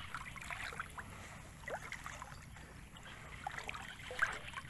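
Shallow muddy water sloshing and splashing as a fishing net is worked through it, with scattered small splashes and a sharper splash about four seconds in.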